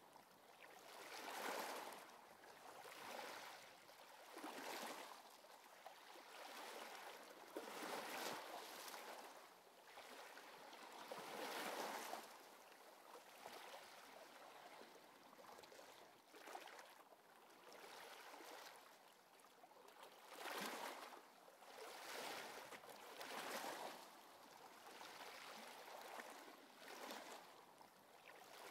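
Quiet sea-wave sound: a soft rushing wash that swells and fades every one to three seconds.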